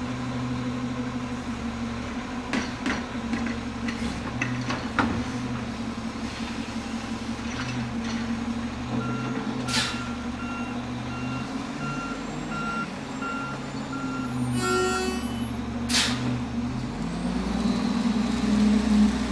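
Automated side-loader garbage truck's diesel engine running, with several metal clanks from the lifting arm in the first five seconds. Its backup alarm beeps about twice a second for about six seconds while the truck reverses, with sharp air-brake hisses, and the engine revs up near the end as the truck moves off.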